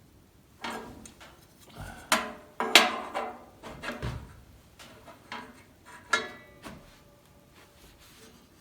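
Metal hand tools and parts clinking and clanking against an old Delta contractor table saw with a cast iron top, a string of sharp knocks with brief ringing, loudest about two to three seconds in and again about six seconds in.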